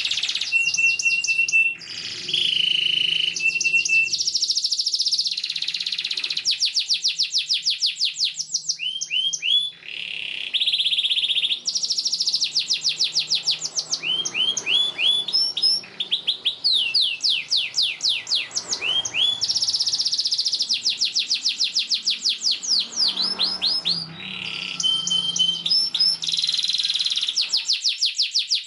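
Domestic canary in full song: a long, nearly unbroken run of high, rapid trills, alternating with runs of quick sweeping chirps and a few short clear whistles.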